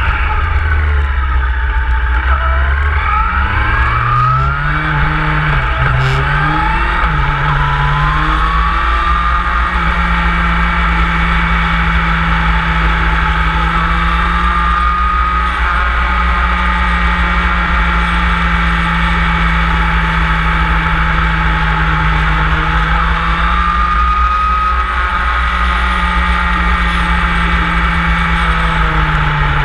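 Motorcycle engine under way, heard from on board. Its revs climb and drop several times through gear changes in the first eight seconds or so, then hold fairly steady at cruising speed, over a constant low rumble.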